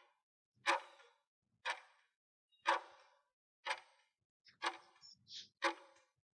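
Quiz countdown timer's clock-tick sound effect, one sharp tick a second, six ticks in a row.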